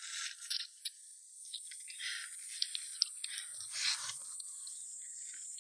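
A person eating spicy crayfish by hand: sucking and slurping at the shells, with small cracks and clicks of shell scattered through.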